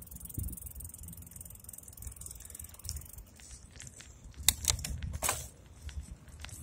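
Low rumble of wind and road noise picked up by a handlebar-mounted phone on a moving bike, with light mechanical clicks and rattles and a few sharper clicks about four and a half to five and a half seconds in.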